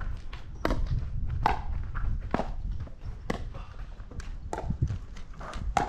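Pickleball rally: paddles striking the plastic ball with sharp pocks, about six hits roughly a second apart, with footsteps shuffling on the court.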